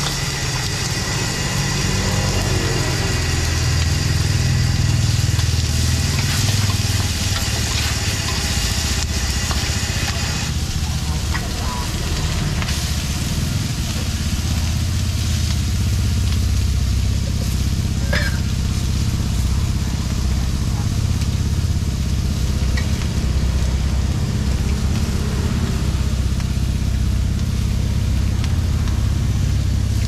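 Squid and onions sizzling hard in a wok over a high gas burner, whose flame gives a steady low rush underneath. The sizzling is loud for about the first ten seconds, then drops off sharply. A few metal spatula scrapes and taps on the wok follow.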